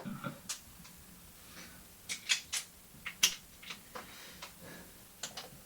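Irregular light metallic clicks and clinks of hand tools, sockets and nuts being handled and fitted. There are about fifteen short knocks at uneven spacing, several in quick succession around the middle.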